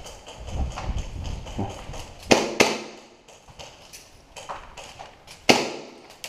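Airsoft gunfire: sharp single cracks, two close together about two and a half seconds in and a louder one near the end, with fainter ticks between.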